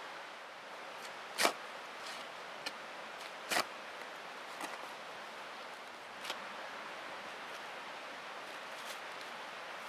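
Steady background hiss with two sharp knocks, about a second and a half and three and a half seconds in, and a few lighter clicks after them.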